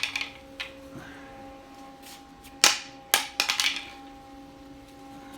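3D-printed PETG switch panel thrown hard onto a concrete floor: the last small clatters of an earlier throw at the start, then a loud sharp plastic clack on impact about two and a half seconds in. A second strike follows, then a quick run of rattling bounces as the panel skids and settles, without shattering.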